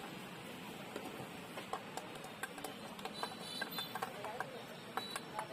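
Metal spoon clicking and scraping against a stainless-steel bowl in short, irregular taps as a sandwich filling is scooped out. Faint music and voices underneath.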